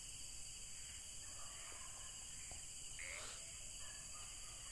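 Faint, steady, high-pitched chirring of night insects.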